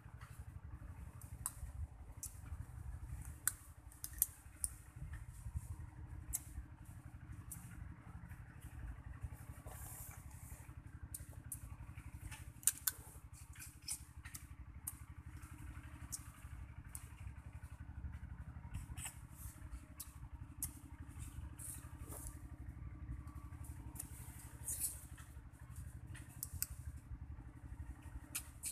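Crunching and sucking sounds of a person eating grilled field crab by hand, with many small sharp cracks scattered throughout, over a steady low rumble.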